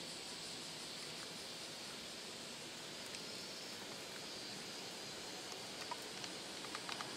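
Quiet, steady outdoor background hiss with a few faint ticks near the end.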